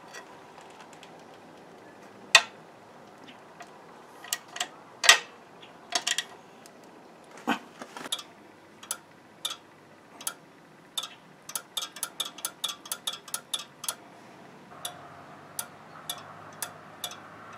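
Sharp metal clicks and clinks of hand tools and hardware on a log splitter's steel frame as a switch bracket is bolted on: a few separate clicks at first, then a run of quick, even clicks, several a second, through the second half.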